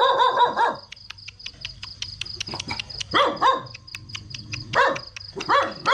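Dog barking in several bursts: a run of barks at the start, then more barks about three seconds in, about five seconds in and near the end.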